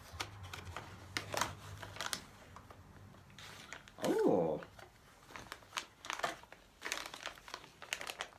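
Packaging rustling and crinkling, with small clicks, as a knife is unwrapped and handled. A short hum-like sound comes about four seconds in.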